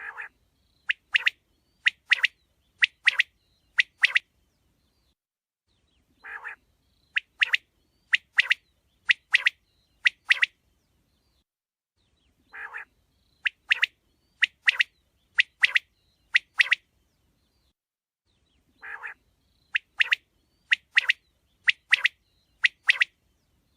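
Quail calling: a low, longer note followed by a quick series of short, sharp notes in pairs, the whole phrase repeated four times about every six seconds.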